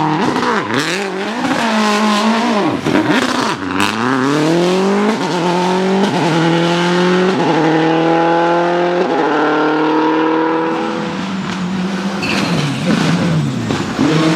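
Subaru Impreza rally car's turbocharged flat-four boxer engine on a stage: after a few sharp cracks and throttle lifts, it pulls hard and revs up through several quick upshifts, then the revs fall away and waver near the end.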